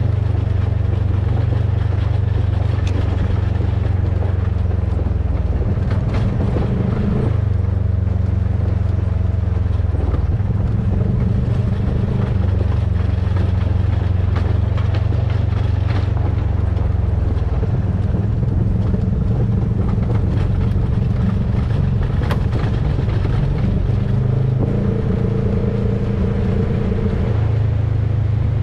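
Polaris RZR side-by-side's engine running steadily as it cruises, its pitch shifting up and down several times with the throttle, with a few sharp ticks from gravel or debris.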